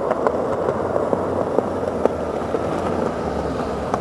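Skateboard wheels rolling steadily over paving, with sharp clicks every few tenths of a second as they pass over seams and grit.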